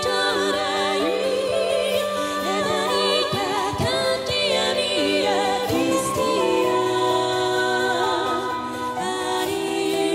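Live music: several female vocalists singing together in harmony, with vibrato, over keyboard and band accompaniment.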